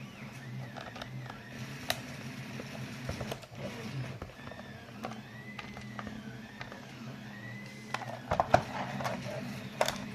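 Handling of a plastic RC transmitter case during disassembly: faint rising-and-falling squeaks in the middle, then several sharp clicks and taps in the last couple of seconds, over a steady low hum.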